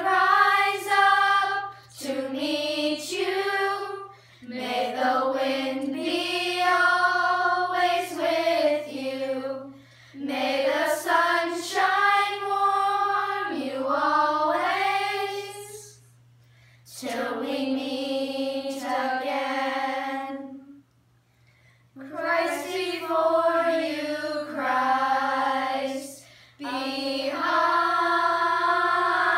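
Group of children singing a song together without accompaniment, in phrases of a few seconds with short breaks for breath between them.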